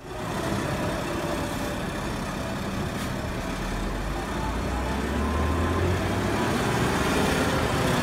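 Diesel engine of a Volvo BM A25 articulated hauler carrying a concrete mixer drum, running as the truck drives along a road, with road and tyre noise. The low engine note grows louder and rises a little about five seconds in.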